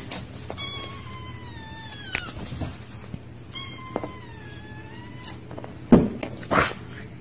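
Kitten giving two long, drawn-out meows, each sliding slightly down in pitch, about a second in and again halfway through. Two loud thumps follow near the end.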